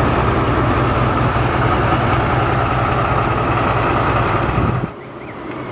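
Henschel-built BDŽ Class 75 narrow-gauge diesel locomotive engine idling steadily with a low hum. It cuts off suddenly about five seconds in, leaving quieter background sound.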